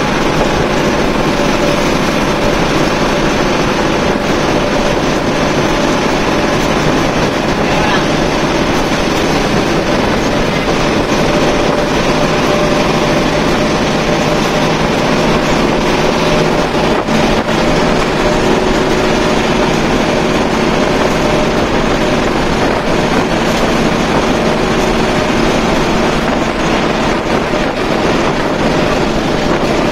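Diesel coach engine and road noise heard from inside the front of the bus at highway speed, near 110 km/h: a steady, loud drone with a few unchanging engine tones under it.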